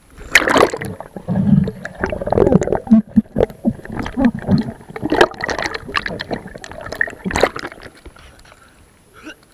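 Water gurgling and sloshing in irregular bursts, with scattered clicks, dying away near the end.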